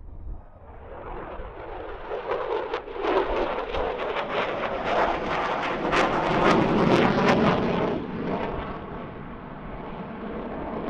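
Lockheed Martin F-22 Raptor's twin Pratt & Whitney F119 turbofan engines running in flight. The jet noise builds, is loudest with sharp crackling a little past the middle, then eases off.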